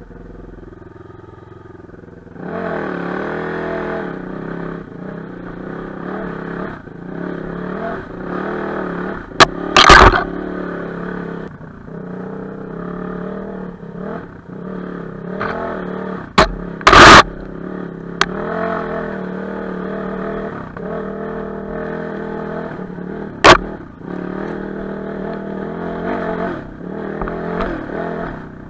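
Enduro motorcycle engine running and revving up and down, quieter for the first couple of seconds and then louder under throttle, with several sharp loud knocks along the way.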